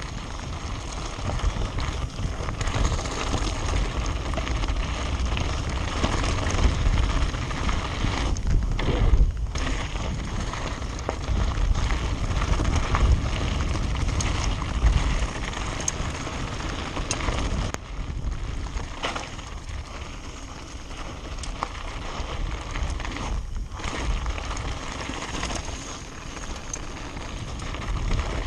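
Wind buffeting the microphone of a mountain bike's point-of-view camera on a fast descent, with the tyres crunching over loose gravel and the bike rattling. The noise thins out briefly a few times.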